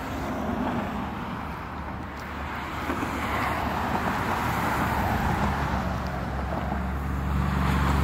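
Road traffic noise: tyre noise from cars on the roadway, swelling and fading, with a deeper steady hum growing louder near the end.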